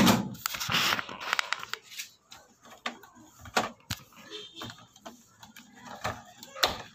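Clicks, knocks and rattling of parts being handled inside an opened Konzert 302 amplifier chassis as its tone-control board and potentiometers are taken out. A loud knock comes at the start, then about a second of scraping and rattling, then scattered single clicks.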